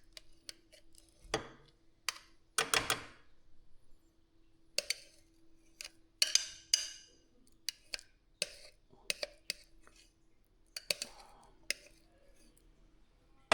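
Kitchen utensils and dishes clinking and knocking at irregular intervals, some strikes ringing briefly like a spoon on a bowl or pot.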